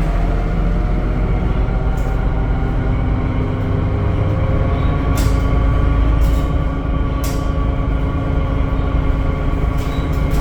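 Temsa Avenue LF 12 city bus with a DAF engine and ZF automatic gearbox running under way. A low rumble lies under a steady whine, and a few short rattles come through, the clearest about five, six and seven seconds in.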